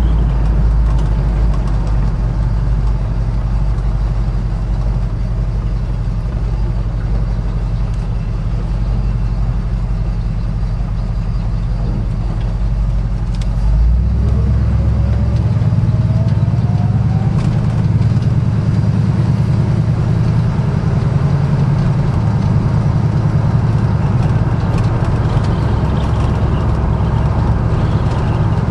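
1972 Ford F-100's 390 FE V8 idling through Hooker competition headers and 30-inch glass-pack dual exhaust, a low, mellow gurgle. About halfway through, its note steps up to a higher pitch and stays there.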